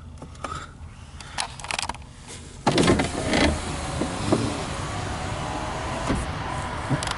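A vehicle's power window motor runs as the glass moves, starting suddenly about three seconds in. A steady rumble carries on behind it.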